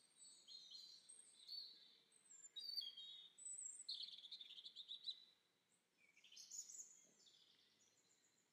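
Faint birdsong: a small songbird singing quick high chirps and trills, pausing briefly about five seconds in and then starting again.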